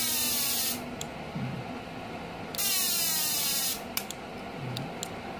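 High-frequency arc starter of a General inverter MMA/TIG welder buzzing in two bursts of about a second each, as its spark-gap points (platina) fire and sparks jump from the TIG torch to the workpiece. A few sharp snaps follow near the end. The buzz is the sign that the HF points are working.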